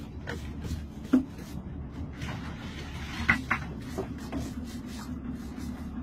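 A blade scraping barnacles off a sea turtle's shell in repeated short strokes, about three a second, with two sharper knocks, about a second in and a little past the middle, over a steady low hum.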